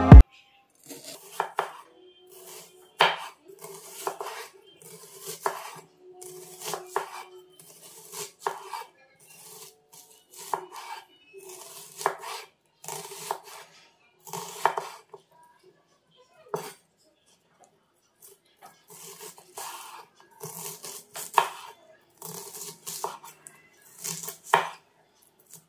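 Chef's knife chopping a red onion on a wooden cutting board: runs of quick knife strikes against the board, broken by short pauses, with a quieter stretch a little past the middle.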